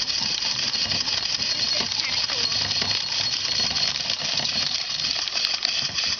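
Small PM Research No. 4 steam engine running and belt-driving a small corn sheller that strips kernels from an ear of corn, giving a steady hiss of steam with fast rattling from the sheller.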